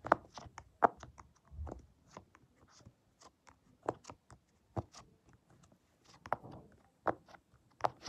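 Purple elastic silicone pop-it fidget toy having its bubbles pressed one after another: a string of short, sharp pops at an uneven pace, about two or three a second.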